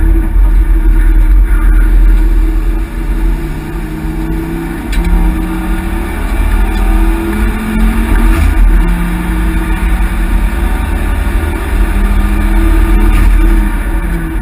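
Ford Focus XR5 Turbo's turbocharged five-cylinder engine heard from inside the cabin, hard at work on a racing lap. The engine is loud throughout and its pitch repeatedly rises and then drops back as the car accelerates, changes gear and slows for corners.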